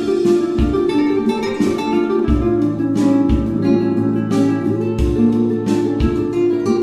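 Instrumental background music led by a plucked acoustic guitar, with low bass notes every second or two.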